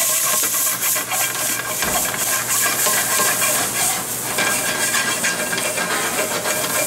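Shaved garlic, capers, basil and green onions sizzling and crackling in hot oil in a sauté pan as it is tossed over a gas flame and flares up into flames, a steady loud hiss.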